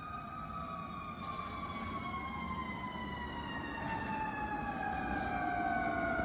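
Fire engine siren winding down, its pitch falling slowly and steadily, over a low vehicle rumble.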